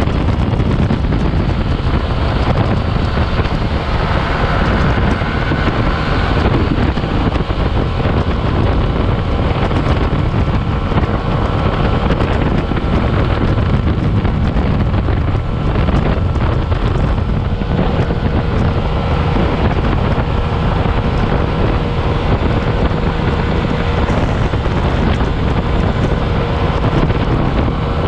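Wind buffeting the microphone of a Yamaha NMax scooter riding at speed, over the steady drone of the scooter's engine and drive.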